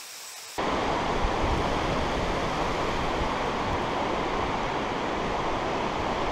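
Fast-flowing river rushing over rocks through a riffle, heard up close from the bank as a steady, loud rush that begins abruptly about half a second in.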